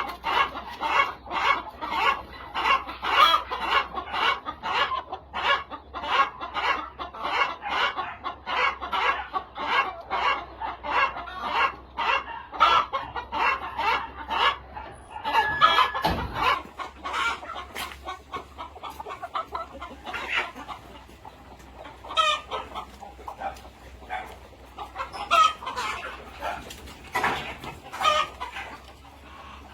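A flock of chickens clucking: a dense, rapid run of calls for about the first half, thinning to scattered calls after a low thud about halfway through.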